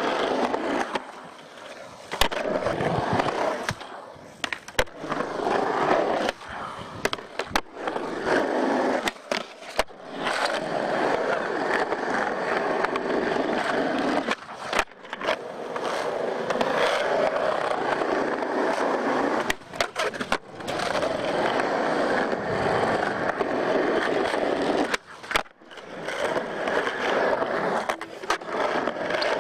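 Skateboard urethane wheels rolling over concrete, a steady rough rumble broken by many sharp clacks as the board pops, lands and strikes ledges and ramp edges. The rolling drops away for a moment a few times where one clip gives way to the next.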